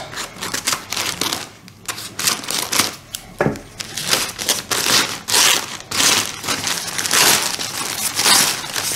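Paper wrapping crinkling and rustling in irregular bursts as gloved hands unwrap a potted plant from it.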